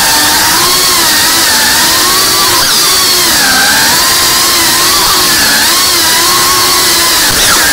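Small FPV drone's electric motors and propellers whining, the pitch wavering up and down as the throttle changes, over a steady rushing hiss.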